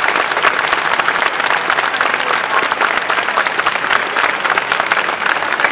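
Audience applauding steadily, many hand claps blending together.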